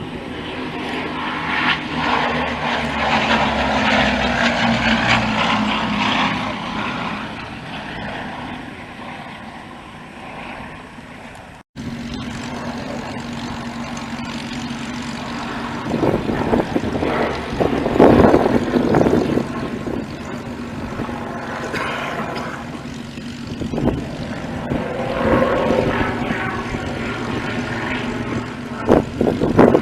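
Piston-engined propeller aircraft flying past at an airshow, the engine note falling as one passes in the first few seconds. The sound cuts off abruptly about twelve seconds in, and a further aircraft engine drone follows.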